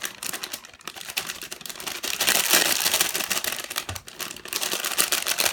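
Packaging being handled and pulled open by hand: rapid crinkling and crackling, loudest about two seconds in.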